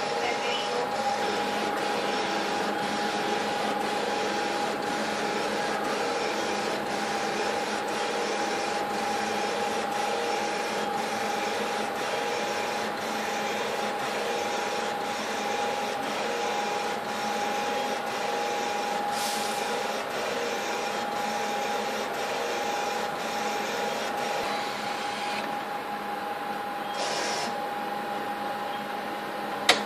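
Epson Stylus Pro 4800 large-format inkjet printer printing a glossy poster: a steady mechanical tone with a short click about every two-thirds of a second as the print head passes. About 25 s in the sound changes, and it ends with one sharp click.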